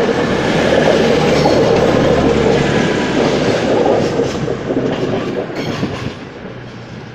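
CrossCountry Class 220 Voyager diesel multiple unit pulling out, its underfloor diesel engines running and its wheels clattering over the rails. The sound fades away near the end.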